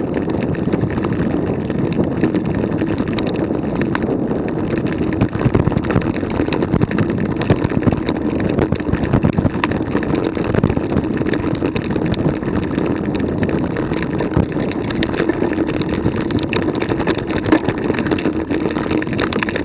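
Steady wind rushing and buffeting on a moving action camera's microphone, with scattered small knocks and rattles.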